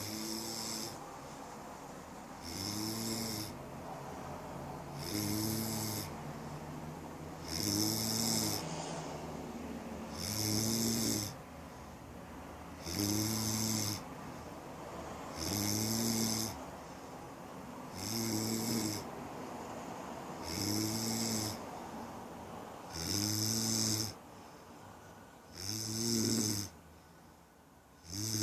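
A person snoring in a steady rhythm, about one snore every two and a half seconds, each lasting about a second with a low buzzing tone and a hiss.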